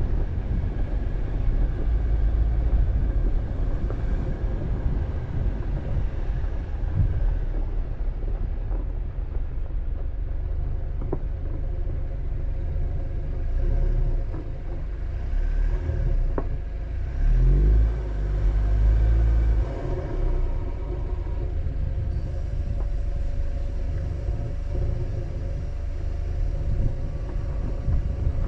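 Car driving on a dirt road: a steady low rumble of engine and tyres, with a few sharp knocks from bumps or gravel. The rumble swells louder for a few seconds a little past halfway.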